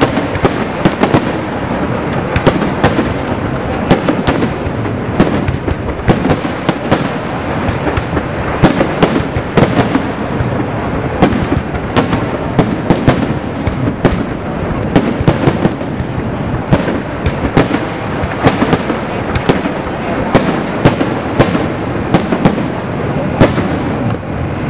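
Professional aerial fireworks display: a dense, irregular barrage of sharp bangs, several a second, over a continuous crackling rumble.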